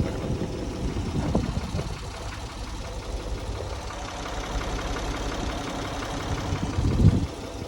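An engine idling, a steady low rumble with a brief louder knock about a second and a half in and a louder swell near the end.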